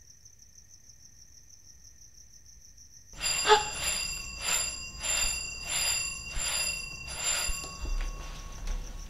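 Crickets chirping steadily, then about three seconds in an old-style telephone bell starts ringing: six or seven rings in a fast, even run, each less than a second apart, stopping shortly before the end.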